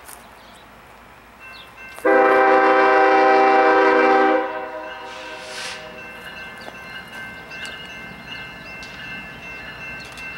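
A Norfolk Southern freight locomotive's air horn sounds one long chord about two seconds in and holds it for about two and a half seconds. The approaching train's running noise follows, with faint steady high tones.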